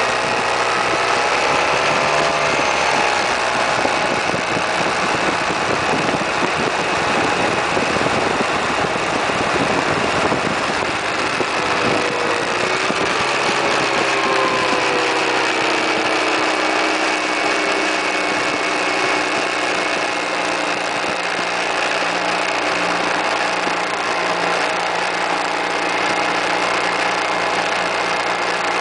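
Suzuki Burgman 650 maxi-scooter's parallel-twin engine running under way, under a steady rush of wind over the microphone. The engine note rises about two seconds in, falls gradually from about twelve seconds in as the scooter slows, then holds steady.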